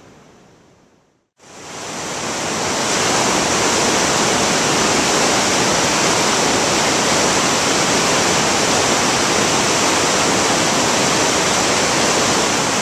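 Steady loud rush of fast-flowing river water, cutting in about a second and a half in.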